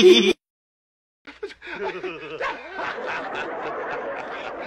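A person's sung voice cuts off abruptly just after the start, followed by about a second of silence. Then comes a steady rushing noise with a person's snickering laughter.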